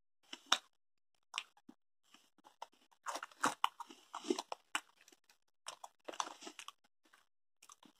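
Close-up chewing of crunchy Estrella Chili BBQ cheese puffs: a few single crunches, then two longer runs of irregular crackly chewing from about three seconds in, with short quiet gaps between.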